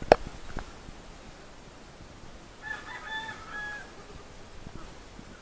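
Two sharp clicks in the first second, the first much the loudest. About two and a half seconds in, a rooster crows once, a stepped call lasting just over a second.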